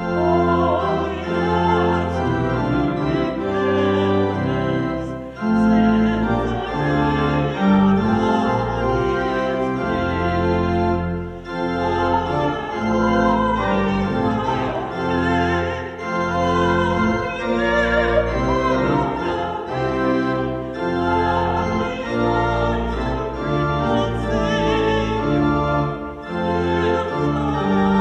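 Church organ playing a hymn accompaniment in slow, held chords, with a woman singing the melody in a wavering voice above it.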